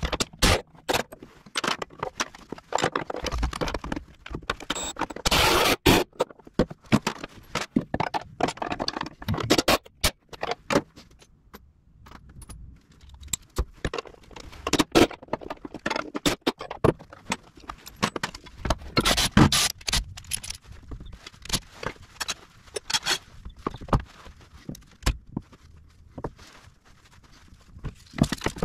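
Hand and cordless tools working steel bolts on a snowcat's differential: short runs of a cordless ratchet, the clicking of a hand ratchet, and bolts and tools clinking and scraping on metal as the pinion nose-cone bolts are taken out. It comes as an uneven string of sharp clicks and clanks, with a longer loud spell about five seconds in.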